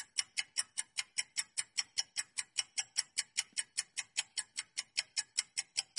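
Quiz countdown-timer sound effect: even, clock-like ticking, about five ticks a second.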